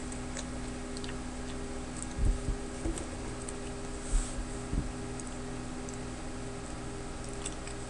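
Quiet room tone with a steady low hum, broken by a few scattered faint clicks and two soft thumps, one a little after two seconds in and one near five seconds.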